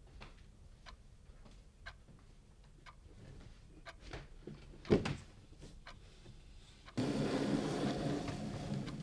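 A clock ticking faintly about once a second, a single sharp knock about halfway through, then about two seconds of steady scraping as a box is slid across a wooden tabletop.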